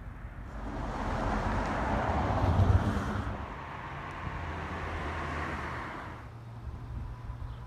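A road vehicle passing by, its tyre and road noise swelling, loudest a little under three seconds in, then fading away.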